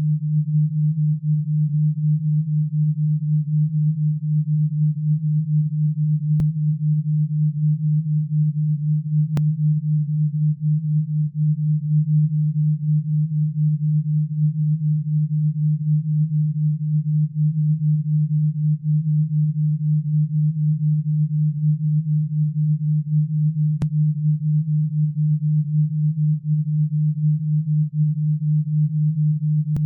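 Synthesized alpha-wave brainwave tone: a single low, steady pure tone that throbs rapidly and evenly in loudness, a beat in the alpha range used as sound therapy for tinnitus and relaxation.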